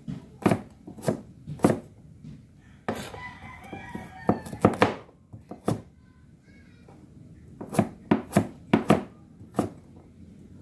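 Cleaver chopping sweet potato on a cutting board: sharp knocks of the blade striking the board in uneven runs, with a quick cluster of strokes near the end.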